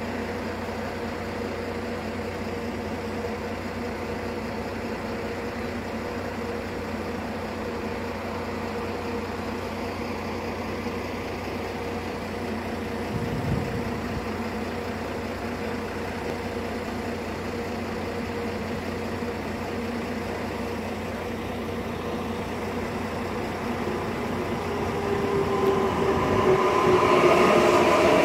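Electric regional train of red double-deck coaches, hauled by a DB Class 146 electric locomotive, approaching and pulling into the station: a steady electric hum, a brief low thump about halfway through, then louder over the last few seconds with tones sliding down in pitch as the train runs in alongside and slows.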